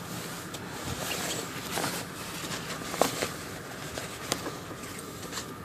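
Handling noise from a winter coat pocket dump: soft rustling of fabric with a few light taps and clicks as small items are taken out and set down.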